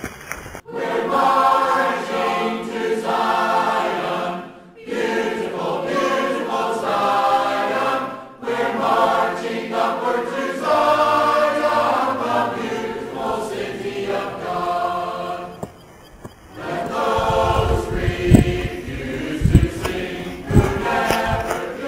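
A choir singing, broken off by a few abrupt silent gaps. In the last few seconds a low, gusty rumble comes in under the singing.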